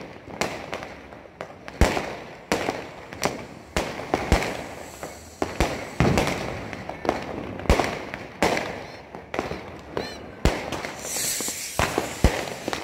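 New Year's Eve fireworks and firecrackers going off all around: sharp bangs several times a second at irregular intervals, each trailing off in an echo. About ten seconds in there is a brief whistle, followed by a burst of crackling hiss.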